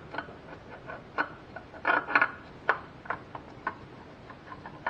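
Scattered light clicks, taps and scrapes as a new spin-on oil filter is worked by hand onto its mounting point on a Nissan RB20DET engine.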